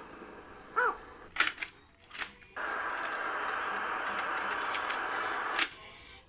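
A car cassette deck sounds one recorded bird call through its speaker. Then a string of sharp plastic clicks as the tape cassette is taken out and handled, a steady hiss for about three seconds, and a sharp clunk near the end as a cassette is pushed into the deck's slot.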